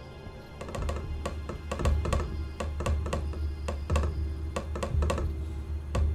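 A telegraph key being tapped out in Morse code: sharp irregular clicks, several a second, starting about a second in, over background music with a low drone.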